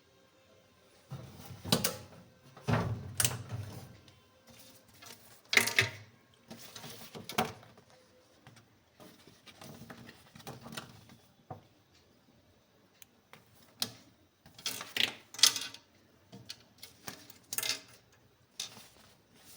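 Irregular handling noises: bursts of rustling and scraping with knocks and a few heavier thumps, coming in short clusters with quiet gaps between.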